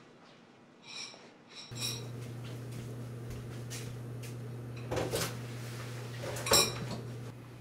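Ceramic bowls and dishes clinking against each other as they are handled at a kitchen sink: several separate ringing clinks, the loudest near the end. A steady low hum sets in about two seconds in.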